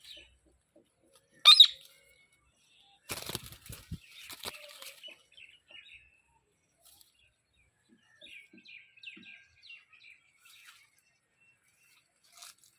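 Parrot giving one loud, sharp squawk about a second and a half in, then a brief flurry of wing flapping, followed by scattered soft chirps and chattering notes.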